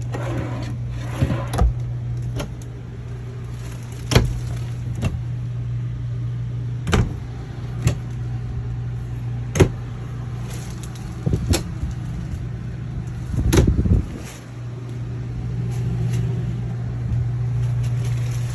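An RV air conditioner running with a steady low hum, just after kicking on. Scattered sharp knocks and clicks sound over it.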